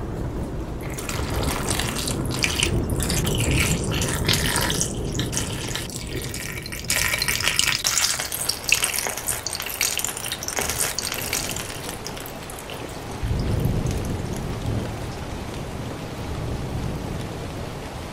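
Water running into a glass bowl of white button mushrooms and splashing over them. The splashing turns softer and lower about two-thirds of the way through.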